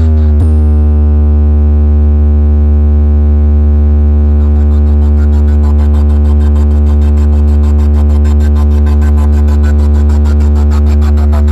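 Deep, steady electronic bass tone with a stack of higher overtones, played very loud through a DJ sound system's speakers for a sound check. It settles in after a short falling glide just after the start.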